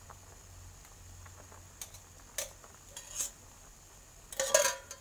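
A spoon clinking and scraping against a bowl as an egg mixture is scraped out into a frying pan. There are a few scattered clinks, then a loud cluster of clinks and scraping near the end.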